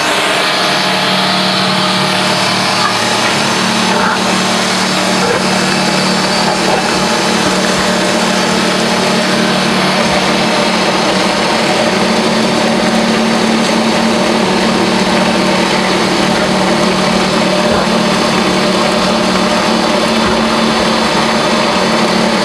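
Screw pump with hopper feeder running: a steady, loud machine hum with a strong low tone.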